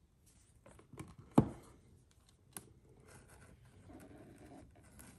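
A leatherette watch presentation box being handled and opened, with one sharp knock about a second and a half in, a lighter click about a second later, then soft rubbing and shuffling.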